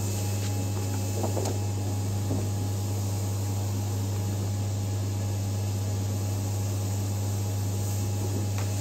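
Vulcan FC500 flatbed cutting table's vacuum hold-down blower running: a steady low hum with an even rush of air. A few faint light ticks from the sheet being handled on the bed.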